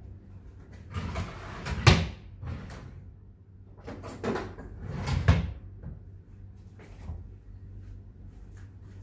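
Household clatter of objects being handled and set down on a low wooden cabinet, with two louder knocks about two and five seconds in.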